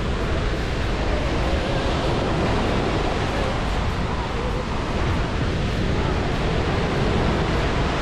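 Small sea waves breaking and washing up a sandy beach: a steady rush of surf, with wind buffeting the microphone.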